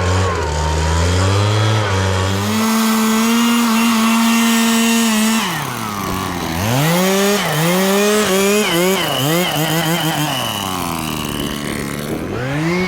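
Gas chainsaw running hard, held at high revs for a few seconds, then dropping off and revved up and down several times, as when flush-cutting a stump low to the ground.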